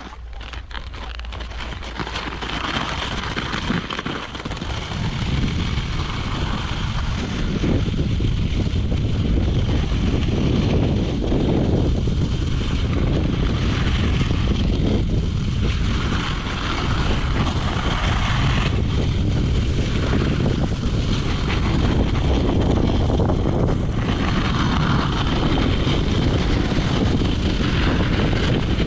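Wind buffeting an action camera's microphone at speed on a ski slope, a loud, steady rumble that builds over the first several seconds and then holds, with the hiss of snowskates sliding on packed snow.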